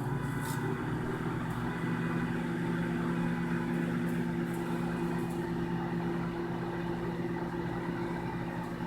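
Microwave oven running: a steady electrical hum with a low drone.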